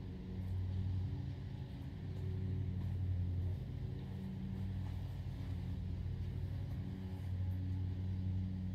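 Steady low motor hum that swells and eases a little in level.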